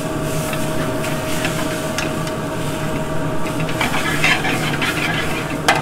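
Chicken cutlets and garlic sizzling in a metal sauté pan over a gas burner, under a steady background hum. Metal tongs click against the pan a few times as the pieces are turned, loudest near the end.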